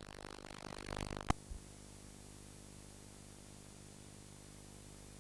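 A faint, noisy wash swells for about a second and is cut by a sharp click. Steady hiss with a low hum follows: the signal has dropped out at the end of the recording, leaving only line noise.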